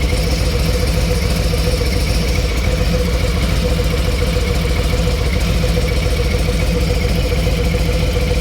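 Harley-Davidson Street Glide ST's Milwaukee-Eight V-twin engine idling steadily, run up on fresh oil just after an oil and filter change.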